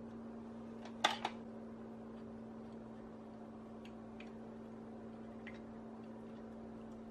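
Metal hand-mixer beaters handled at a glass mixing bowl: a sharp double clack about a second in, then a few faint light ticks, over a steady low hum.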